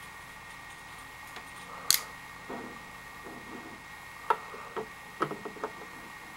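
9-inch stiletto switchblade knives being handled and clicking: one sharp metallic snap about two seconds in, then several lighter clicks close together in the second half.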